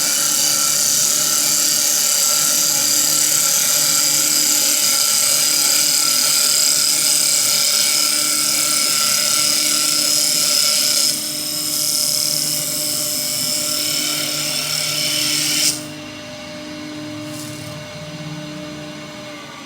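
CNC wood lathe turning a wooden handle: a loud, steady hiss of the cutter on the spinning wood over the machine's motor whine. The hiss eases about eleven seconds in and cuts off sharply near the end, leaving the motor running quieter.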